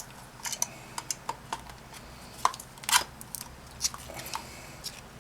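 Irregular small clicks and scrapes of a tool working at the rubber cover on a Flojet water pump's electric motor, trying to pry it off, with the loudest click about three seconds in.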